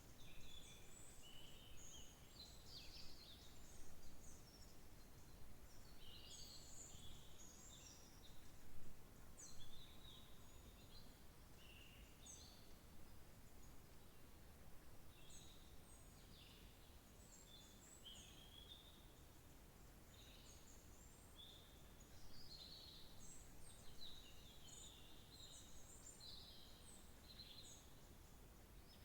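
Faint birdsong: many short, high chirps and twitters in quick runs, thinning out for a few seconds past the middle, over a low background hiss.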